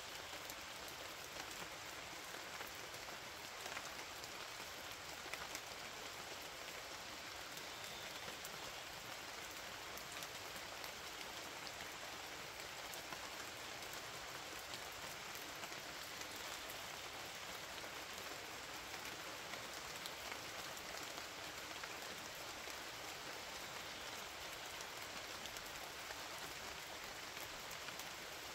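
Steady rain falling: an even hiss dotted with the patter of many small drops.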